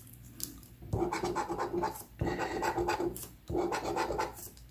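A handheld scratcher tool scraping the coating off a lottery scratch-off ticket, in three bouts of about a second each with short pauses between them, after a quieter first second.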